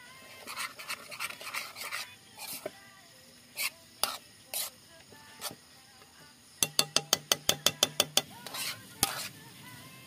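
A metal spatula scraping and stirring food in a wok, in short irregular strokes over a faint sizzle. A little past the middle comes a quick, even run of about a dozen sharp metallic clacks.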